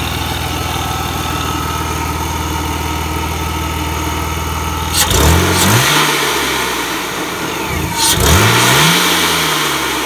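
Supercharged BMW M52TU inline-six idling steadily, then revved twice, about five and eight seconds in. Each rev rises sharply and falls back to idle, sounding strong on its newly fitted VF Engineering centrifugal supercharger.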